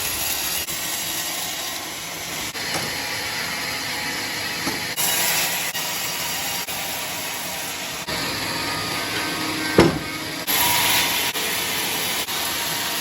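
Sawmill saw cutting through a log, a steady noisy rush that changes in level a few times, with one sharp knock near the end.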